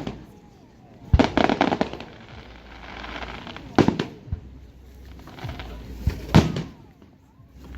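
Aerial fireworks shells bursting: four sharp bangs a couple of seconds apart, one of them followed by about a second of dense crackling, with a low rumble between the bursts.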